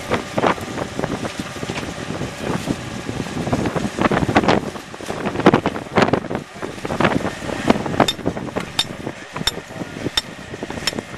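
Strong gusty wind buffeting the microphone. From about eight seconds in, a steady run of sharp knocks, about one every three-quarters of a second: a hammer striking at the fence posts.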